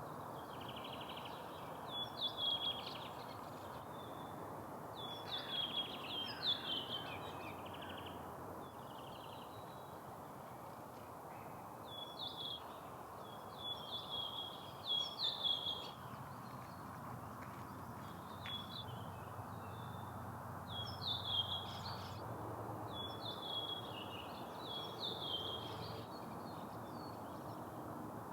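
Songbirds singing short, high phrases every few seconds, over a steady low rushing background.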